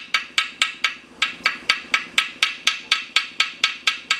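Ball-peen hammer striking cast iron stitching pins set in a Willys engine block, a steady run of light ringing metal-on-metal blows about four or five a second, with a brief pause about a second in. The pins' edges are being peened over to close them tight against the cast iron in a cold crack repair.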